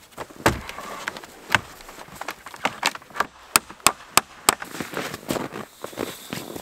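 Hammering on a log frame: a knock about half a second in and another a second later, then four quick sharp strikes, about three a second, a little past halfway, like a nail being driven into timber. Softer knocks and shuffling follow.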